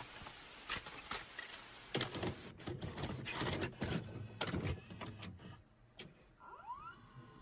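Irregular clicks and knocks over a steady hiss, with a few short rising whistle-like glides near the end.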